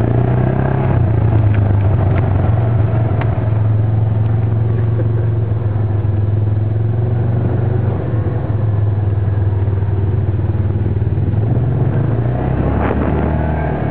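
Engine of a side-by-side off-road vehicle running at a steady, loud note, heard from its own seat. The note dips briefly about eight seconds in and shifts near the end.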